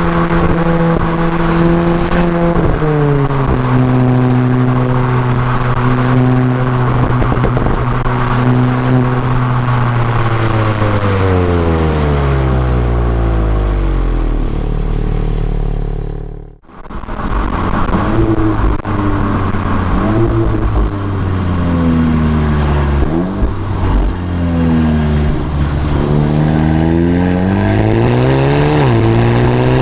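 Exhaust of a Volkswagen Golf GTI TCR's turbocharged 2.0-litre four-cylinder under way. Heard close at the rear of the car, the engine note holds steady, drops at a gear change a few seconds in, then falls slowly as the car slows. After a sudden cut about halfway, the revs rise and fall repeatedly through gear changes.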